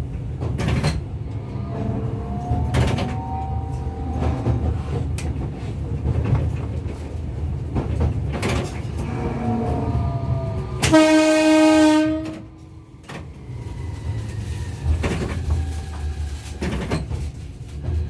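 Tokyu Setagaya Line tram (300 series) running, with a steady low rumble and clicks from the wheels. About two-thirds of the way in comes a single horn blast lasting a little over a second, the loudest sound: a warning to a boy running across a level crossing ahead.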